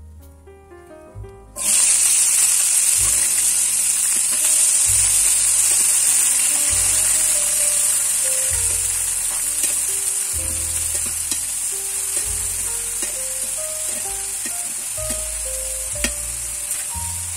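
Chopped vegetables tipped into hot oil in a frying pan: a loud sizzling starts suddenly about a second and a half in and slowly eases as a spoon stirs them, with a click of the spoon near the end.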